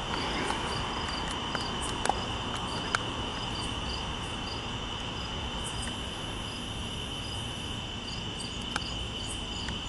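Night insects, crickets or katydids, calling in a steady high trill, with another insect call pulsing above it about twice a second. Under them is a low, even rumble with a few faint clicks.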